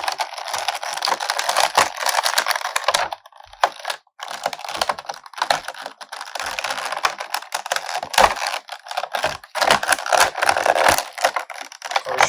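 Stiff plastic action-figure packaging being handled, with rapid crackling and clicking as the figures are worked out of their trays, with a short lull a little over three seconds in.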